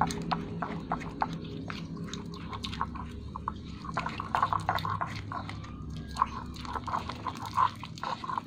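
Slime being stirred in a bowl as activator is mixed in: many irregular wet, sticky clicks and squelches, over a steady low hum.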